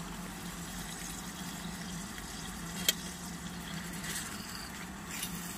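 OEX Tacana gas canister stove burning steadily under a pan of meat frying and sizzling. A sharp click comes about three seconds in, and a utensil works the meat in the pan near the end.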